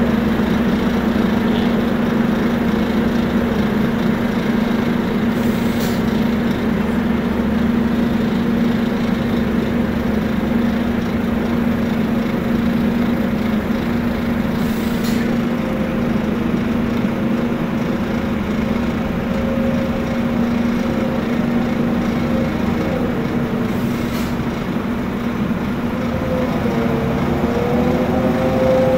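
Heavy-haul diesel engine running steadily, a constant hum and rumble. A second, higher engine tone wavers and rises near the end.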